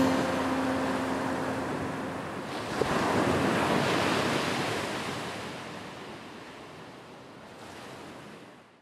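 Sea waves washing onto a sandy beach, a steady hiss of surf that fades away toward the end. A last guitar note rings on for the first two seconds.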